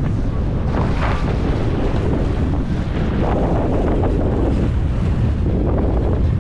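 Strong wind buffeting the camera microphone in a steady low rumble, over water rushing and splashing along the hull of a sailboat sailing in heavy wind; the rush of water swells a few times.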